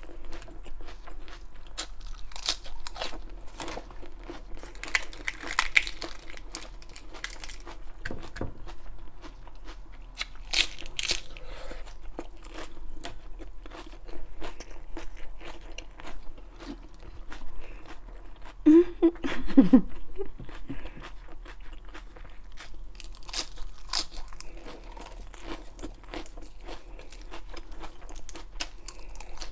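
Close-miked chewing and crunching of raw iceberg lettuce, with crisp leaves peeled and snapped off between mouthfuls in a dense, irregular crackle. A brief low hum about two-thirds of the way through is the loudest moment.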